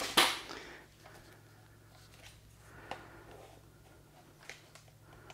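A brief rustling burst just after the start, then quiet room tone with a steady low hum and a few faint, scattered clicks.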